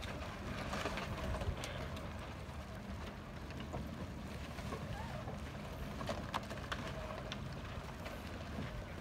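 Wind buffeting the microphone as a flickering low rumble over a steady outdoor hiss. A few light clicks and knocks are scattered through it.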